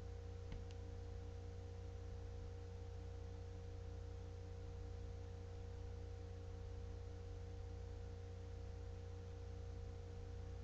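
Steady low electrical hum with a few faint constant tones over it, the room tone of a webcam recording, with one small click about half a second in.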